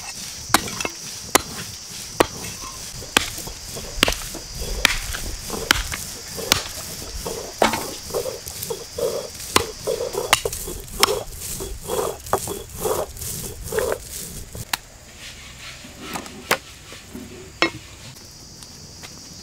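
Cleaver chopping through goat rib bones on a wooden chopping block. The chops are sharp and come about one to two a second, thinning out near the end.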